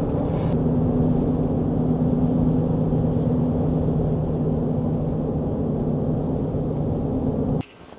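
Steady road and engine noise inside a pickup truck's cabin while driving at highway speed: a low drone with a couple of held hums, cutting off suddenly near the end.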